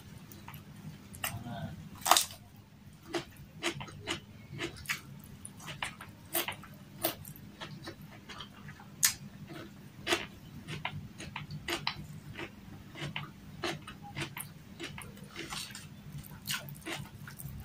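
Close-miked mouth sounds of eating with the hands: chewing and lip smacks in sharp, irregular clicks, one to two a second, the loudest about two seconds in, over a low steady hum.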